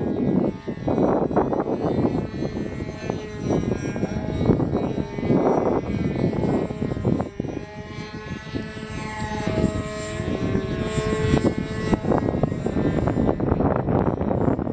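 Two radio-controlled model airplanes flying overhead, their small propeller engines buzzing at different pitches that rise and fall as the planes swoop and turn.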